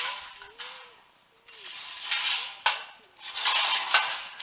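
Thin sheet-metal shed parts and screws being handled, clinking, rattling and scraping in several bursts with a few sharp clicks.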